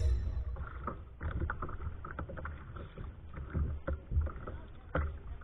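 Small waves slapping and knocking irregularly against a fishing kayak's hull, with light wind on the microphone; a louder ringing hit is fading out at the very start.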